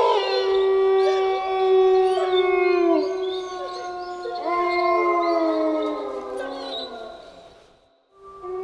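Several wolves howling together in chorus: long, held howls at different pitches overlapping, sliding down in pitch and fading out near the end, with a new howl starting just before the end.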